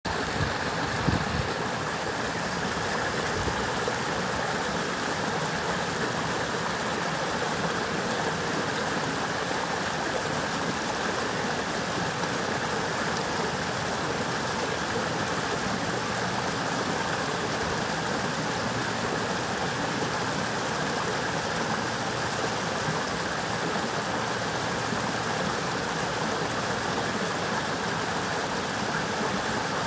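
Forest brook rushing steadily, with two brief low thumps about a second in.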